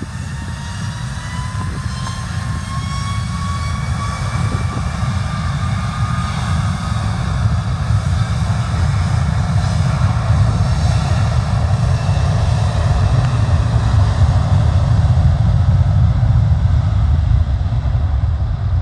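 Airbus A330 airliner's jet engines at take-off power, a rising whine over a deep rumble that grows steadily louder as the aircraft accelerates down the runway.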